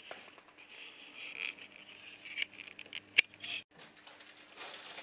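Light handling sounds of a small circuit board and its wires being moved about on a sheet of paper: scattered small clicks and taps, one sharp click a little after three seconds in, and paper rustling near the end.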